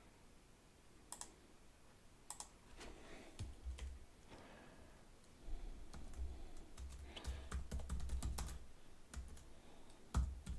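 Typing on a computer keyboard: a few scattered keystrokes at first, then a quick run of keystrokes from about three seconds in.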